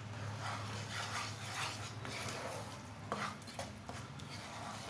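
Wooden spatula stirring and scraping a thick paste of whole-wheat flour roasting in ghee around a nonstick kadai, in repeated soft strokes about every half second, over a steady low hum.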